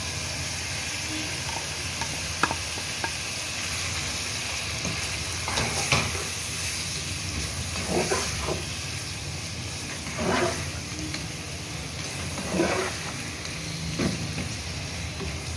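Chicken pieces sizzling in hot oil in a nonstick pot, stirred with a slotted spatula whose strokes scrape through the pot every two seconds or so over a steady frying hiss.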